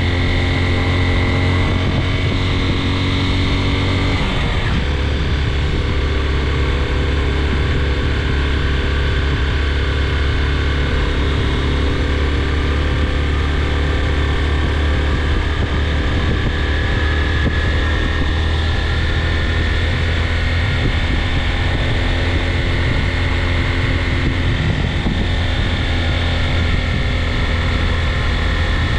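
A vehicle engine running steadily while driving on the road. Its note drops in pitch once, about four seconds in, then holds steady.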